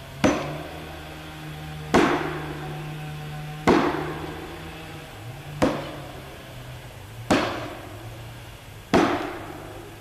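Six heavy hammer blows driving felling wedges into the back cut of a standing tree, about one every 1.7 seconds, each with a short ringing tail. The blows drive the wedges in to tip the tree towards its fall. A low steady hum runs underneath.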